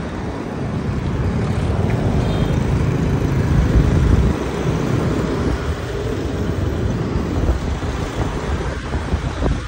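Wind rushing over the microphone and the low road rumble of a moving vehicle.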